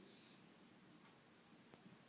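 Near silence: room tone, with a faint click near the end.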